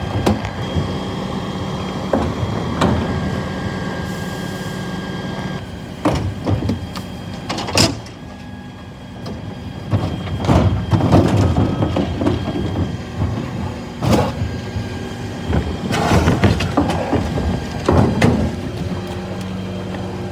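2017 P410 Olympus twin-pack rear-loader refuse truck running steadily while its hydraulic bin lift raises and tips wheelie bins, with several sharp knocks and clatters as the bins bang against the lifter.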